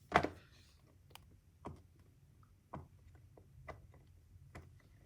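Silicone Pop-It fidget toy being pressed bubble by bubble: a string of short, soft pops at an uneven pace, roughly one every half second to second, the first the loudest.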